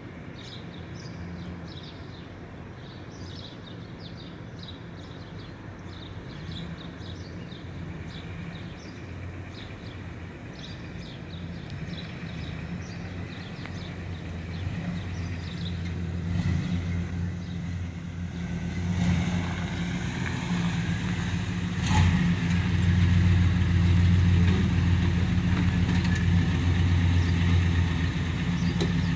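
A 1990s Chevrolet Caprice-body sedan's V8 engine running as the car rolls slowly up and pulls alongside, its low rumble growing steadily louder. Birds chirp in the first half, and there is one sharp knock about two-thirds of the way through.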